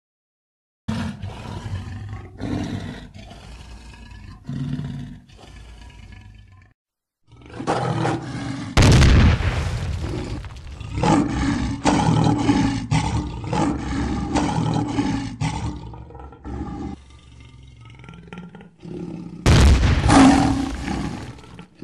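Lion roars used as a logo sound effect, mixed with heavy hits. A few sharp hits come in the first seconds, then after a short pause a long loud stretch with the roar, a quick run of strokes, and one more loud burst near the end.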